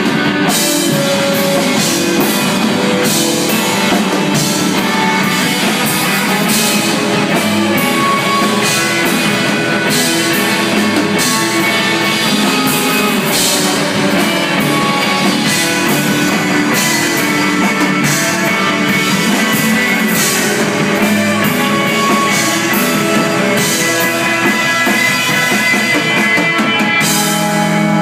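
Post-rock band playing live: electric guitars and bass over a drum kit with frequent cymbal hits. The drums stop about a second before the end, leaving the guitars ringing on.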